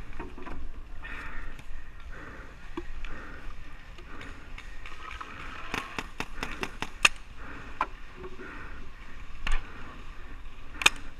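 Paintball markers firing: scattered sharp pops, a quick cluster of several shots about six to seven seconds in, then single shots.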